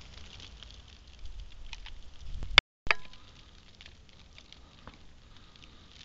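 Faint crackling patter of footsteps in fresh snow, with a low rumble of handling noise on the camera's microphone building up. About two and a half seconds in, a sharp click and a short gap of dead silence where the recording cuts, then another click.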